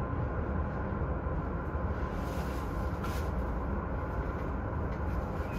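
Running noise inside the front car of a JR E231-1000 series commuter train as it moves off again after an emergency stop: a steady low rumble.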